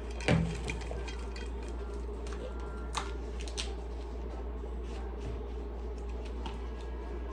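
Kitchen handling sounds: a knock about a third of a second in, then scattered light clicks and clinks of dishes and utensils, over a steady low hum.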